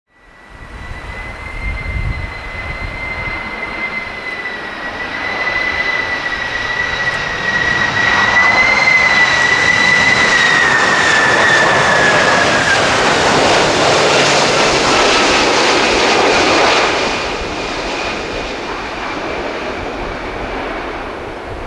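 Boeing 767-300ER freighter on final approach, its twin turbofan engines whining at a steady high pitch over a rushing jet noise. The noise swells to its loudest as the jet passes close by, the whine sliding slightly lower, then eases as it flares for touchdown.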